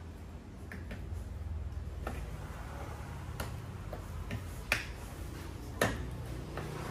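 Scattered sharp clicks and taps of hard plastic from a car's door trim panel being pressed home on its clips and screwed down with a screwdriver at the door-handle recess, with two louder snaps about two-thirds through and near the end.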